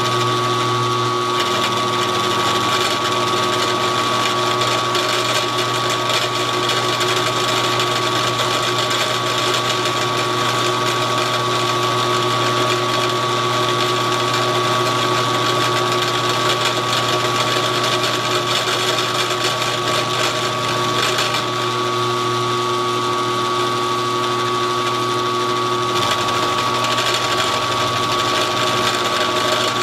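Old benchtop mill-drill running steadily, its cutter taking a roughing pass across the metal frame of a tube bender as the table feeds: a steady motor whine with the noise of the cut.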